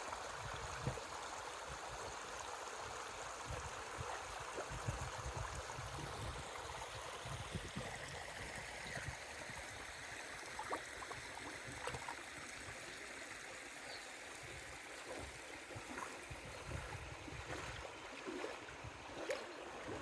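Small creek flowing and trickling, a steady rush of water, with irregular low rumbling underneath and a few faint ticks.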